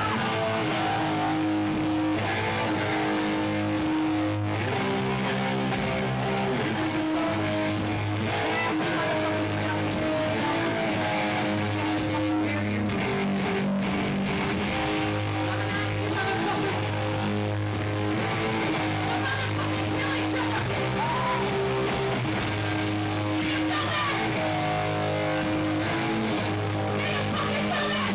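Hardcore punk band playing live and loud: sustained distorted electric guitar chords over bass, changing every second or two without a break.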